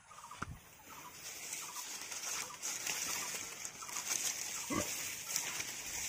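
Dry rustling of cut maize stalks and leaves being handled and carried, with two dull knocks, one near the start and one near the end.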